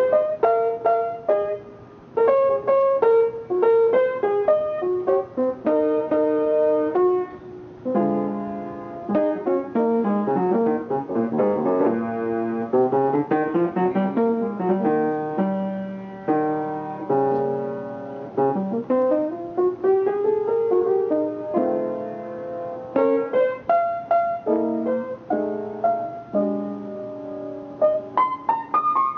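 Jazz piano playing chords and quick runs of notes, with sweeping runs up and down the keyboard in the middle.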